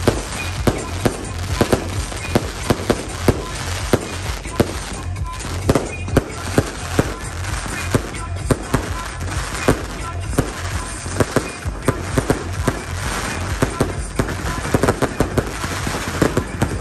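Fireworks going off in a dense, irregular barrage: sharp bangs several times a second over a continuous crackle.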